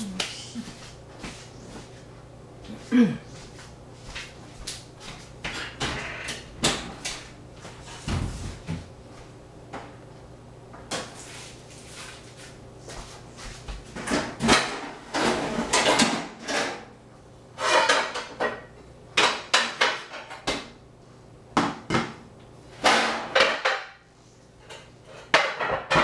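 Kitchen work sounds: dishes, utensils and containers clinking, tapping and knocking on a work surface at irregular times, sparse at first and busier in the second half.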